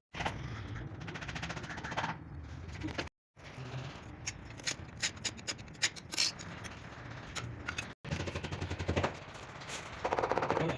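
A quick series of sharp taps and knocks from stair tiling and marble-setting work, broken by two abrupt cuts to silence.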